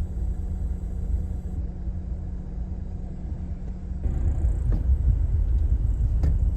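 Low, steady road rumble inside a moving car's cabin, getting a little louder and rougher about four seconds in.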